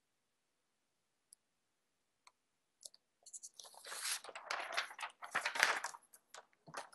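A sheet of paper picked up and handled, rustling and crinkling for about three seconds from roughly the middle on, after a few faint ticks.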